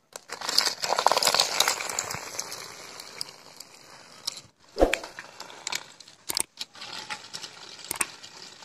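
Small homemade remote-control car driving over rough concrete, its motor and plastic wheels making a crackly rattling noise. The noise is loudest as it sets off, fades as the car moves away, and is broken by a few sharp knocks.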